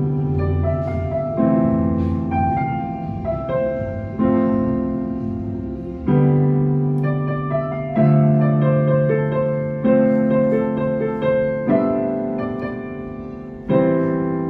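Piano played slowly: a melody over chords, with a new chord struck about every two seconds and each left to ring and fade.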